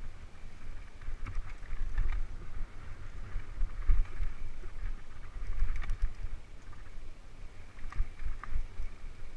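Wind buffeting the microphone of a camera on a moving mountain bike, a deep uneven rumble. Under it the tyres run over dirt and rock, with occasional sharp rattles and knocks from the bike.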